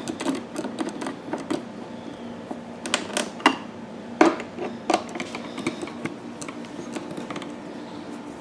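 Irregular light clicks and knocks of long screws and the plastic generator case being handled as the screws are fitted into the bottom of the case, with a few sharper knocks near the middle.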